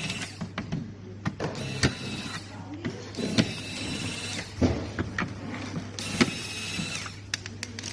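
A small electric motor whirring in short bursts of about half a second to a second, four times, with clicks and knocks in between and a steady low hum underneath.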